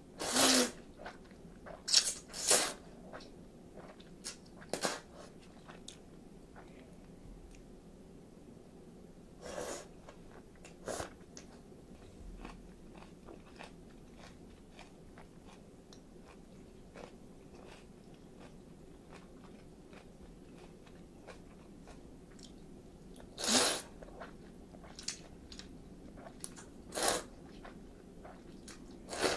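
A person slurping chilled ramen noodles, about nine short loud slurps spread over the stretch, bunched near the start and near the end. Soft chewing and wet mouth clicks in between.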